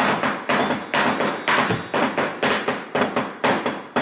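Cleaver chopping raw shrimp on a plastic cutting board: rhythmic knocks, about two strong strikes a second with lighter ones between.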